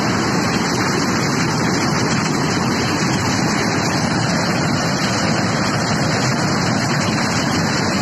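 The Yamuna river in flood, a steady loud rush of fast, churning floodwater.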